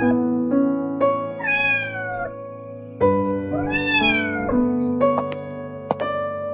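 A cat meowing twice, long drawn-out mews that bend in pitch, about a second in and again halfway through, over slow piano music.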